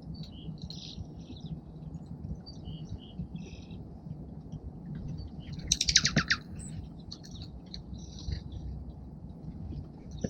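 Small songbirds at a feeder chirping and twittering in short, scattered calls, with one loud, harsh call about six seconds in. A steady low background rumble runs underneath.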